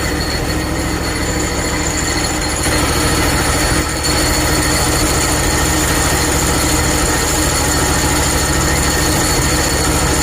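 Hud-son Oscar 330 Pro portable bandsaw mill running steadily: the engine's hum under a high, steady whine from the band blade. The sound gets a little louder about two and a half seconds in.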